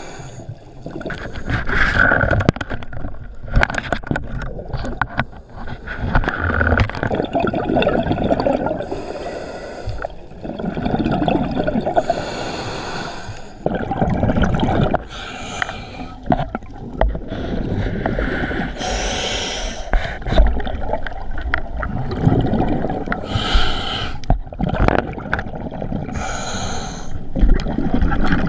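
Scuba diver breathing through a regulator underwater: a hissing inhalation about every three to four seconds, each followed by a gurgling rush of exhaled bubbles.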